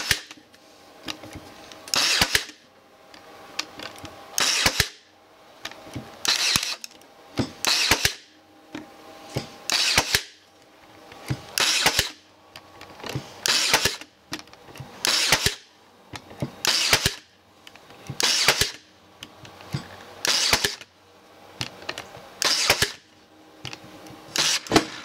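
Brad nailer driving brads into the edge of a plywood panel, firing about a dozen times at a steady pace of roughly one shot every two seconds. Each shot is a short, sharp crack.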